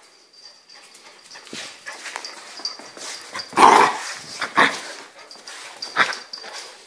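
A puppy making short sounds in play, three times. The loudest comes about three and a half seconds in, and two shorter ones follow about a second and two and a half seconds later.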